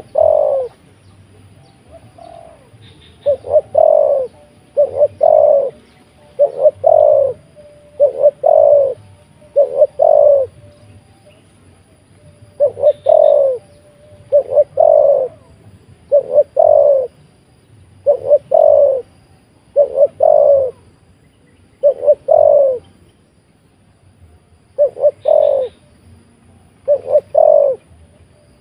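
Decoy spotted dove cooing over and over: short loud phrases of coos, each falling in pitch, repeated about every one and a half to two seconds, with a couple of longer pauses.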